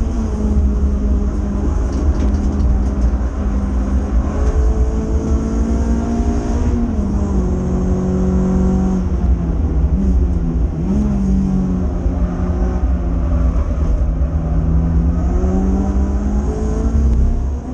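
Renault Clio 182's 2.0-litre four-cylinder engine at race pace, heard from inside the cabin, its note rising and falling with gear changes and braking, dropping sharply about seven seconds in. A constant low road and wind rumble runs beneath it.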